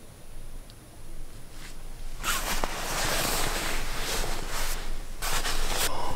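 Nylon down sleeping bag rustling as a hand moves over it and handles it, in several uneven bouts starting about two seconds in.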